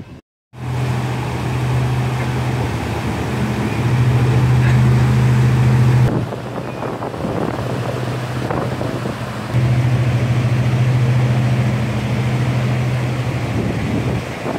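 Steady rush of river water pouring over a weir, with a low, steady engine hum over it for much of the time.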